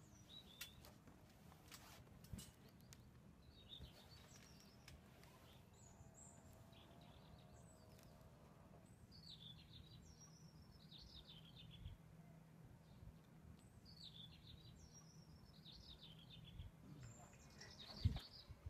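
Near silence with faint birds chirping in the background on and off, and a single sharp knock near the end.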